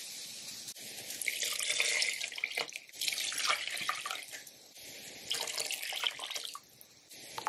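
Broth and water poured from a glass into a slow cooker of tomatoes and beans, splashing in three pours with short pauses between.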